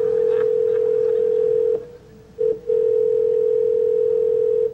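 Telephone line tone: one steady pitch that breaks off about two seconds in, returns for a short blip, then holds steady again until near the end, with a faint click at each break.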